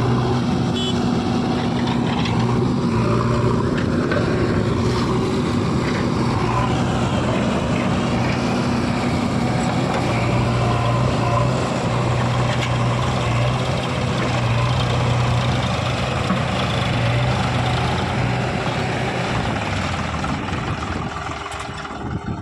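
Heavy diesel engine of a working machine running at a steady speed, a low even engine note that drops away about twenty seconds in.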